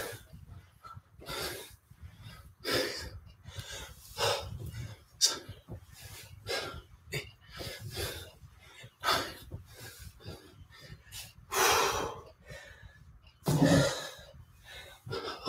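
A man breathing hard in sharp, rhythmic exhales, about one every second and a half, as he works through kettlebell goblet squats. Near the end comes a louder burst with a dull thud as the kettlebell is set down on the floor mat.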